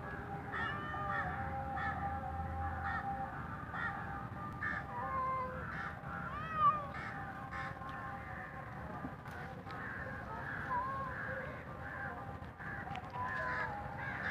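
Several birds calling over and over, short harsh calls mixed with rising-and-falling chirps, coming every second or so.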